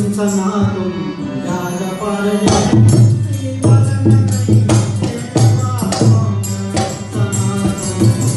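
Live Indian song with a harmonium's sustained reed tones under a male voice, the sung line falling in pitch early on. Hand percussion strikes come in about two and a half seconds in and keep a beat after that.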